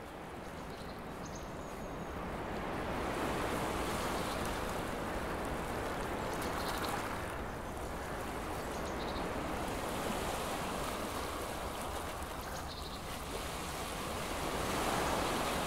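Ocean waves washing in a steady surf rush that swells up over the first few seconds, with faint short high-pitched notes now and then.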